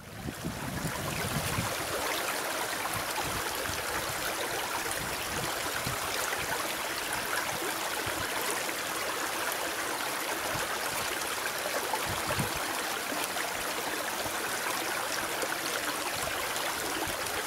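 Steady distant rushing roar of a Boeing 777-300ER's GE90 jet engines on the takeoff run, even and without distinct tones, fading in over the first second, with irregular low rumbles underneath.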